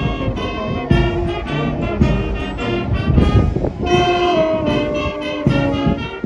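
Brass band playing sustained chords that change about once a second, with low drum strokes underneath.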